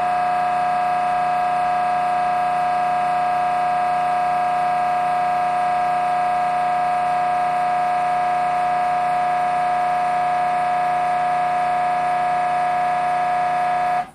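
Siemens Symphony Maestro Class 1.5T MRI scanner running a scan sequence: its gradient coils give a loud, steady buzzing tone with many overtones, which cuts off suddenly near the end as the sequence stops.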